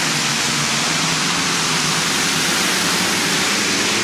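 Modified pulling tractor running flat out under load down the pull track: a loud, steady engine noise with a low drone beneath.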